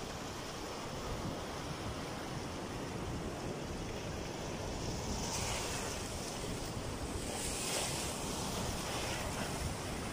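Sea surf breaking and foaming water washing over a rocky shore shelf, a steady rushing wash that surges louder about five seconds in and again near eight seconds.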